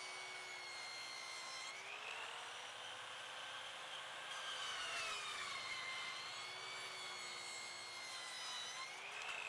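Black & Decker 13-amp corded circular saw cutting a 45-degree bevel through a 2x6 board: a steady motor whine with the rasp of the blade in the wood. Its pitch rises about two seconds in, dips again in the middle, and rises once more near the end.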